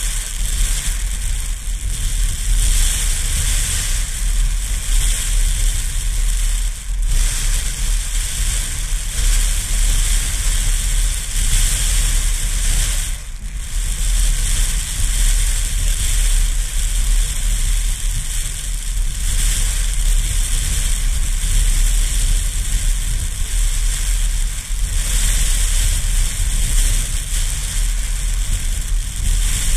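Strong gusty wind buffeting a GoPro's microphone: a heavy low rumble under a bright, crackly hiss, easing briefly a few times before gusting up again.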